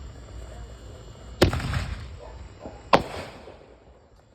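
Single-shot consumer firework going off: two sharp bangs about a second and a half apart, each with a short rumbling tail.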